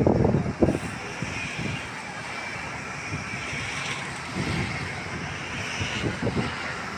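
Steady outdoor traffic rumble, with gusts of wind buffeting the microphone at the start and again about four and six seconds in.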